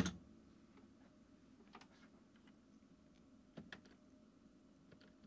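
Faint, isolated clicks of a computer keyboard and mouse over quiet room tone: one sharper click at the start, then a few light clicks spaced a second or two apart.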